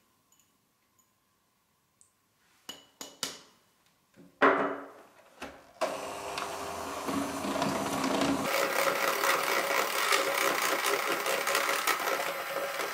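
Siemens electric hand mixer running steadily with its beaters whisking through batter and crushed Oreos in a steel bowl, starting about six seconds in. It is preceded by a few knocks and a louder thump.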